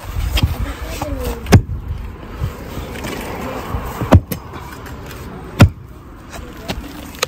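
A digging tool striking into the ground and roots to work a root loose: three heavy thuds, about a second and a half in, about four seconds in and near six seconds, with lighter knocks between.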